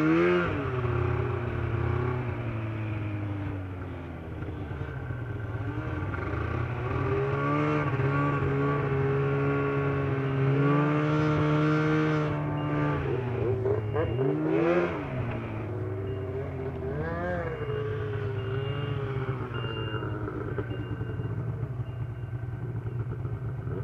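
Snowmobile engine running along a trail, its pitch rising and falling several times as the throttle is opened and eased off.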